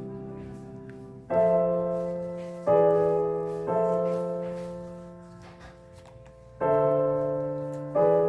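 Background piano music: slow chords struck about every one to three seconds, each left to ring and fade.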